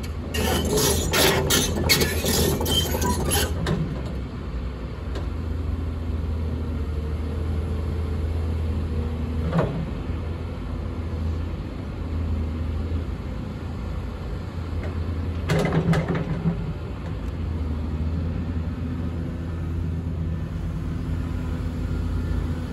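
Cat 320D hydraulic excavator's diesel engine running steadily under hydraulic load as the machine slews its upper structure and works the boom and bucket. A quick series of metal clanks comes in the first few seconds, with single clanks again about ten and sixteen seconds in.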